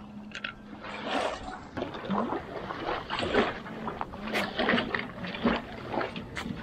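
Irregular metallic clanks and knocks from a boat trailer being handled to launch a small boat, over water lapping at the ramp.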